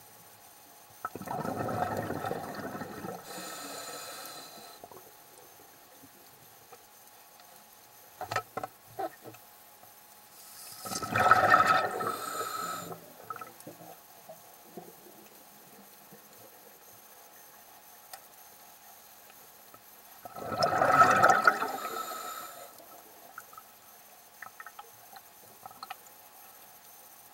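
Scuba diver's exhaled air bubbling out of the regulator underwater, three bursts of bubbles about ten seconds apart, one per breath, with quiet and a few faint clicks in between.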